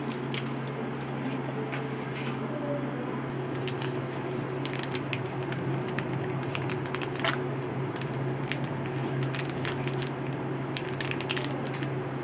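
Plastic ketchup sachet crinkling and being squeezed out over a bowl of food, giving scattered small clicks and rustles over a steady low hum.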